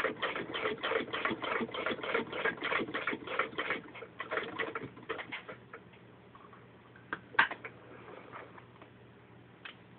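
Antique Davis Advance B sewing machine head turned by hand, stitching through six layers of denim with a rhythmic clatter of about four to five stitches a second that slows and stops about five seconds in. A single sharp click comes about seven seconds in, and a lighter one near the end.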